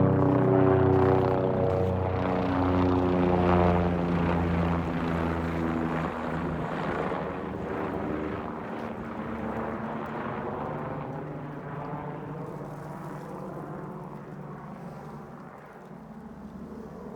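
Helicopter flying over with a steady rotor and engine drone. It is loudest at first and fades steadily as it moves away.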